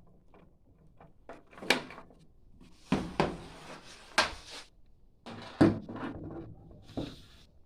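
A string of sharp knocks and clunks from tools and metal being handled during auto body work, with short scraping noises in between. The loudest knock comes a little past halfway.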